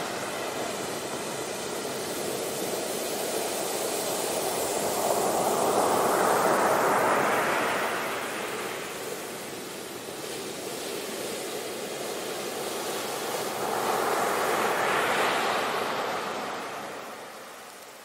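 Ocean surf: waves breaking and washing up the shore in a steady rush of foaming water. It swells twice, about six and fifteen seconds in, and eases near the end.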